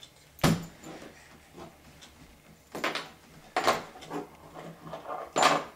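Hollow knocks and bangs on a plastic Little Tikes Cozy Coupe ride-on car as a baby's hands grab and slap it while she pulls herself up on it: one sharp knock about half a second in, then three more near three, three and a half and five and a half seconds.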